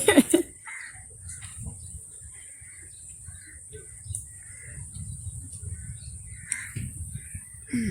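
Crows cawing every second or so, short harsh calls over a low steady rumble.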